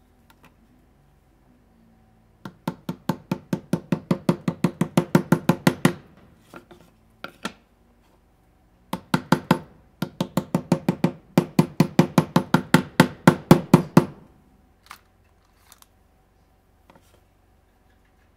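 Plastic-faced mallet tapping on a small wooden block held over a brass strip, knocking the brass flat against the pine base. The blows come in two quick, even runs of about five a second: one from about two and a half seconds in, and a longer one from about nine to fourteen seconds.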